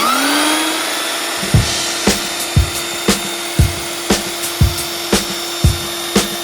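Belt sander switched on, its motor whine rising in pitch as it spins up over about a second and then running steadily. From about a second and a half in, a regular thump comes about twice a second over the motor sound.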